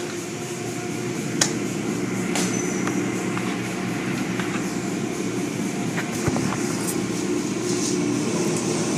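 Automatic tunnel car wash running: overhead cloth mitter curtains and brushes sweep over a foam-covered car under water spray, with the steady hum of the wash machinery and a few sharp clicks and knocks.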